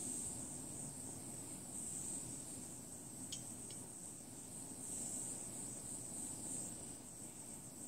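Butane micro torch flame hissing steadily with a low rumble under it. Two faint ticks about three seconds in.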